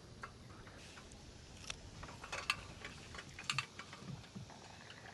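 Irregular light clicks and taps, sharpest and most frequent in the middle, over faint low background noise.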